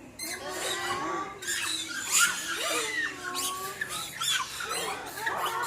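Formosan rock macaques (Taiwanese macaques) calling: a burst of high-pitched squeals and screeches from several animals, overlapping and bending in pitch, starting suddenly just after the start.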